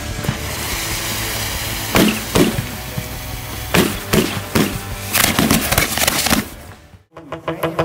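Daytime fireworks set on the ground going off: sharp bangs, first spaced out, then a quick cluster, over background music. Near the end the sound drops out briefly and a different, rhythmic piece of music starts.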